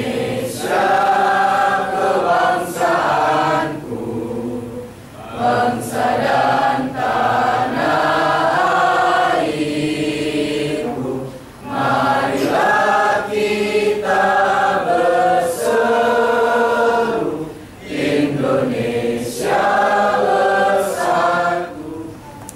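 A mixed choir of men's and women's voices singing in chorus, in long phrases with short breaks between them.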